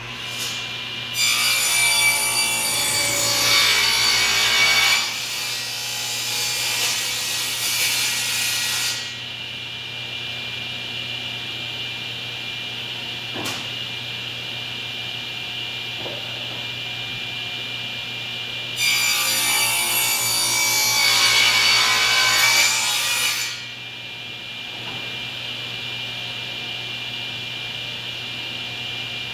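Electric saw cutting wood twice: a long cut of about eight seconds near the start and a shorter one of about four seconds past the middle. A steady hiss runs underneath.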